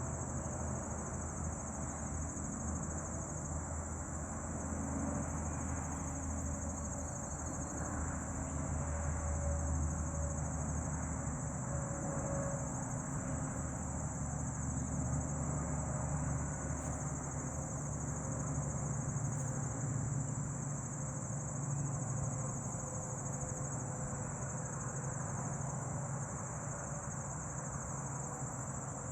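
Crickets trilling in a steady, unbroken high-pitched chorus, over a low, wavering hum of honey bees buzzing around a swarm.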